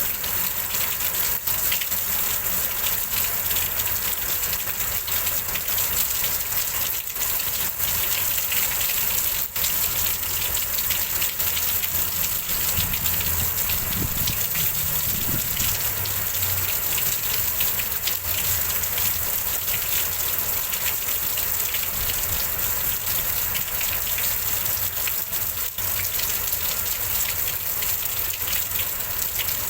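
Heavy rain pouring down steadily in a wind and rain storm, a dense, even hiss. A faint low rumble comes and goes about halfway through.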